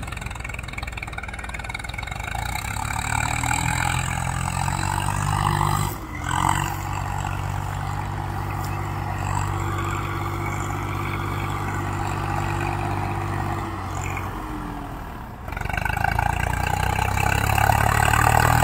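Swaraj 855 FE tractor's three-cylinder diesel engine working hard under load while hauling a fully loaded paddy trolley through a field. The engine note climbs over the first few seconds, holds steady, dips briefly about six seconds in and again near fifteen seconds, then picks up again.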